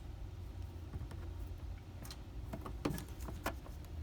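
Scattered light clicks and ticks of needle-nose pliers working the thin metal band of a wind-up hose clamp, several of them bunched in the second half, over a low steady hum.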